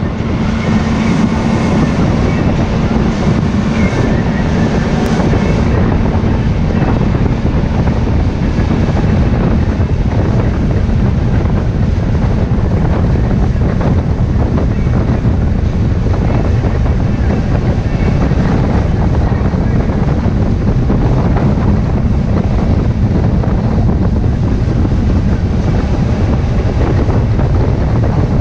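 Loud, steady wind buffeting the microphone over the rush of water along the hull and the drone of a boat's engine, a boat running at speed.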